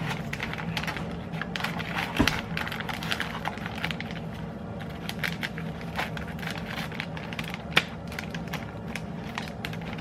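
Metallic foil pouch crinkling and crackling as it is handled and torn open, with irregular sharp crackles, a couple of them louder; a steady low hum runs underneath.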